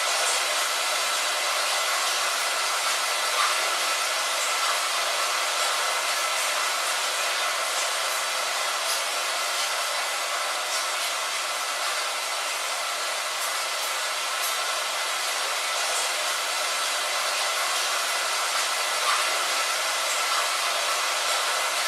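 Rain falling: a steady, even hiss with a few faint drop ticks scattered through it.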